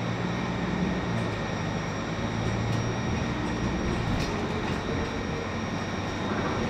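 Running noise of a moving bus heard inside the cabin: a steady engine hum with road and rolling noise, and a faint whine that rises in pitch about halfway through as it picks up speed.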